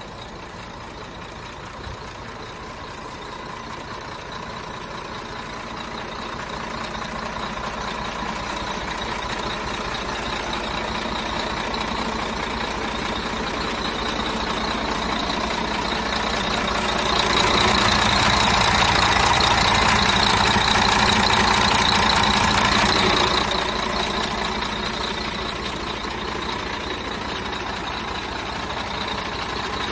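Sinotruk HOWO 6x4 truck's diesel engine idling steadily. It grows louder toward the middle, stays loudest for about six seconds, then drops back a little.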